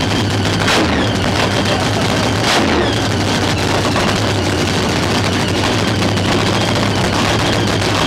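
Nostalgia funny car's nitro-burning V8 cackling at idle through open zoomie headers: a loud, rapid, crackling rattle. There is a sharper crack just under a second in and another about two and a half seconds in.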